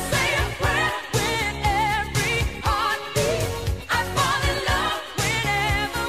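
Pop song playing: a wavering singing voice over a steady drum beat and bass line.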